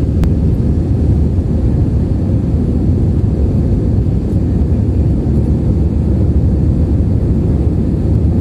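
Steady low rumble of a jet airliner's engines and rushing air, heard from inside the passenger cabin during the approach to land, with a faint click shortly after the start.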